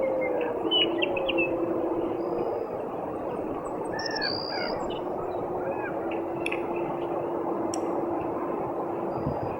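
Long, drawn-out howling calls from two overlapping voices. One falls in pitch near the start, and a lower one is held for several seconds later on. They sound over a steady rushing hiss, with brief bird chirps scattered through.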